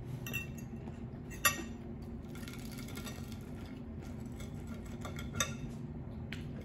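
Eating utensils clinking and scraping against dishes and food containers, with a sharp clink about a second and a half in and another near the end, over a steady low hum.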